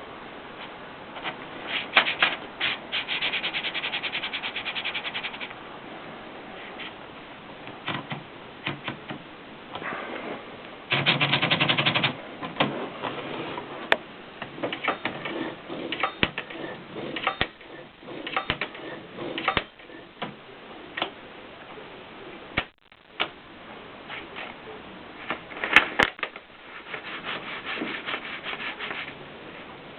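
Consul manual typewriter being worked: irregular key strikes clacking one after another, with stretches of rapid, even clicking three times (early, about a third of the way in, and near the end), typical of the carriage moving or the ratchet running.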